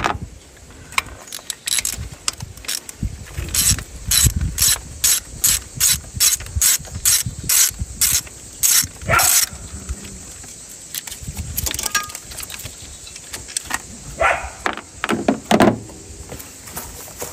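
Hand ratchet wrench clicking in quick, even strokes, a little over two a second, on a 10 mm bolt holding the ignition coil; the strokes stop about halfway through. A few metal clinks and knocks follow near the end.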